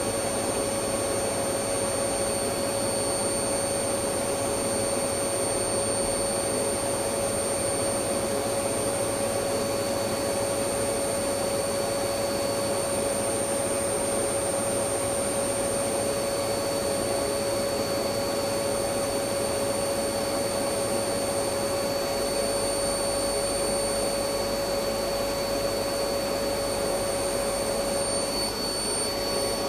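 Electric vacuum cleaner running steadily: a continuous whooshing hiss with a steady motor whine, no change in pitch or level.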